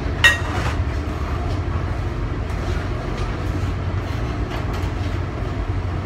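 Commercial kitchen ambience: a steady low machinery rumble runs throughout, with one sharp ringing clink of dishes about a quarter second in and scattered light clatter.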